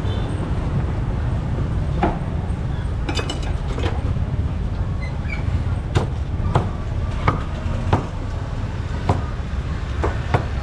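Street market ambience: a steady low rumble with scattered short, sharp knocks and clacks.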